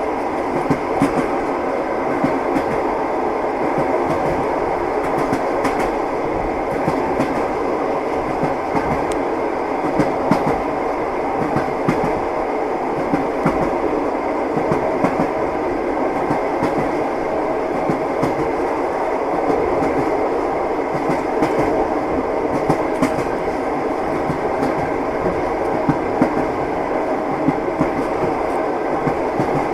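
Wheels of a long-distance passenger train knocking over the rail joints, heard from inside a compartment carriage: a steady rumble with clickety-clack knocks recurring about once a second.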